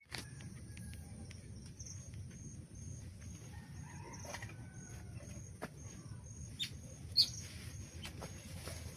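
Chickens clucking faintly over a steady low outdoor rumble, with scattered sharp clicks and snaps; the loudest comes about seven seconds in.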